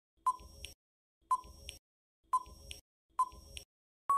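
Countdown-timer sound effect: four short beeps about a second apart, then a longer steady beep starting right at the end as the time runs out.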